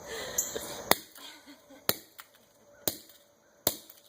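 Hammer striking a pager lying on a concrete driveway: four sharp blows about a second apart, the pager not yet breaking.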